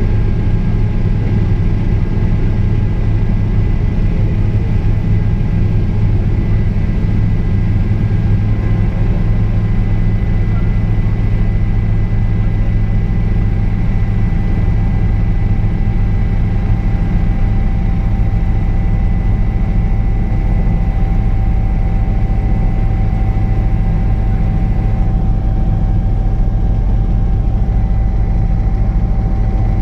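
Helicopter in flight heard from inside the cabin: a loud, steady low drone of the rotor and engine, with thin high engine whine tones running over it.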